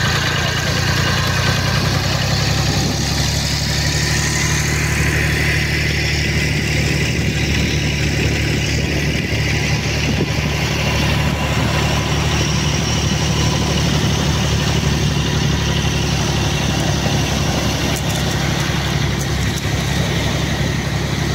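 Tractor engine running steadily under a constant load, driving a capstan winch that hauls in the rope of a beach seine net.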